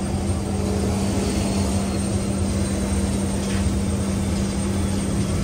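Steady drone of an airliner at the gate during boarding: a constant hum with a strong low tone over a deeper rumble.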